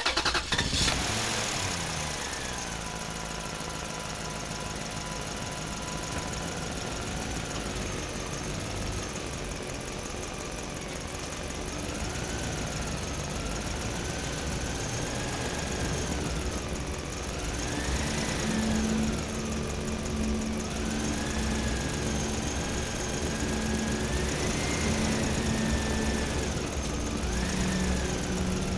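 Excavator engine running steadily, with a whine that rises and falls again and again as the machine works. It gets somewhat louder about two-thirds of the way through.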